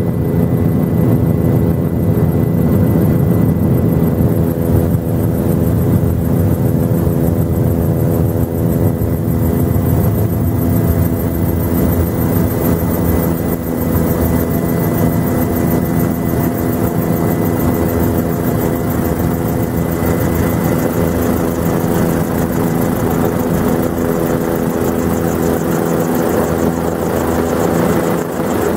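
Helicopter in flight: a steady, loud engine and rotor drone made of several steady hum tones, with a thin high whine that fades out about two-thirds of the way through.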